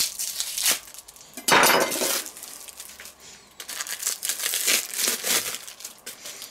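Plastic wrapping on a round of soft cheese crinkling and tearing as it is cut open and peeled off by gloved hands, in several rustling bursts, the loudest about one and a half seconds in.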